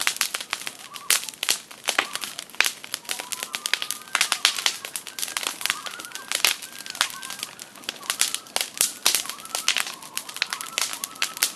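Campfire crackling and popping, with common loons calling in long, wavering wails underneath.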